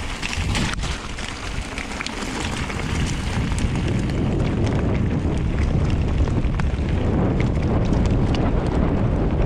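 Wind buffeting the microphone and mountain-bike tyres rumbling over loose gravel on a fast descent, with small stones clicking now and then. The rumble grows louder about three seconds in.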